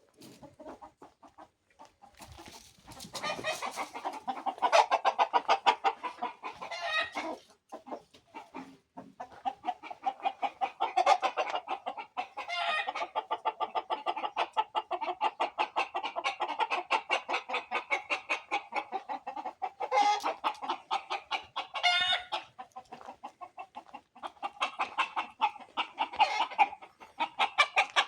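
A flock of chickens clucking and cackling in fast, continuous pulses, with roosters crowing now and then. It starts faint and becomes busy about three seconds in.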